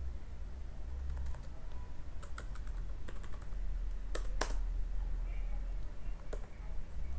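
Computer keyboard being typed on in short, irregular bursts of keystrokes, with two louder keystrokes about four seconds in, over a low steady hum.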